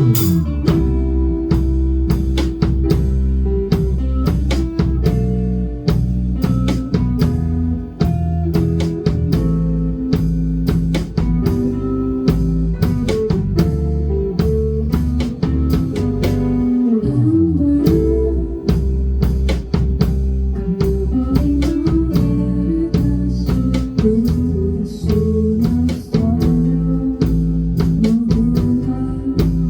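Live band playing guitar-led music over a drum kit keeping a steady beat, with no singing yet.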